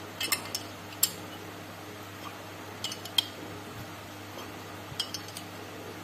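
A small wrench clinking against the nut of a threaded-rod bearing puller as it is turned in short strokes to draw out the small camshaft bearing of a Yamaha FZ150i cylinder head. The sharp metal clicks come in small clusters about every two seconds, over a steady low hum.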